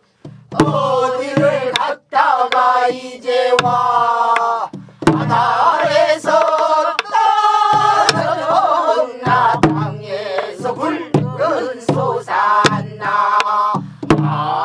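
A mixed group of men and women singing a Korean Namdo folk song together, accompanied by a buk barrel drum beaten in a steady rhythm, with low drum thumps and sharp stick clicks on the drum.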